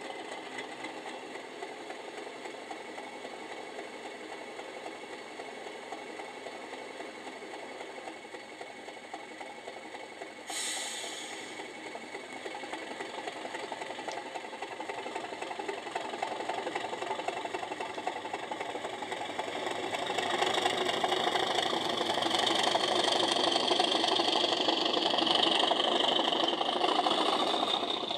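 Sound decoder in an OO gauge Accurascale Class 37 model playing an English Electric Class 37 diesel engine through its small speaker: idling steadily, a short sudden hiss about ten seconds in, then the engine builds up in loudness with a high whistle over it as the locomotive pulls away.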